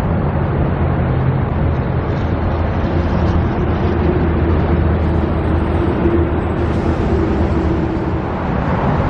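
Steady road traffic noise from vehicles passing close by, with a low engine drone throughout and a steady hum that holds through most of the middle.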